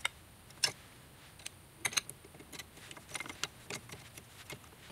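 Wrench tightening nuts on a metal bracket: a run of small, irregular metallic clicks and taps as the tool seats on the nuts and the hardware knocks against the bracket.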